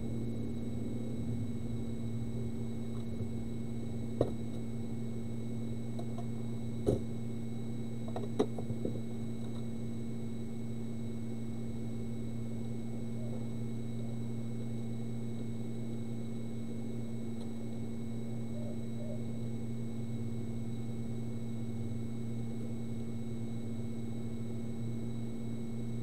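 Steady electrical hum and drone from workbench equipment, with three or four sharp clicks of small metal tools being handled in the first several seconds.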